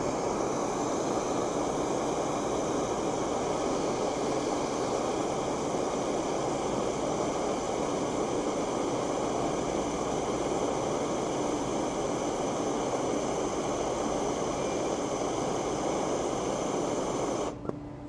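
MAP gas hand torch burning with a steady hiss, its flame heating a copper cable lug so solder melts into the crimp. The torch is shut off shortly before the end.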